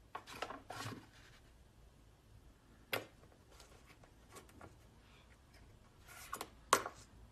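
Faint rattling and clanking of a metal gate as a small dog climbs its bars: a cluster of scrapes about a second in, a single sharp clank near three seconds, and the loudest clanks near the end.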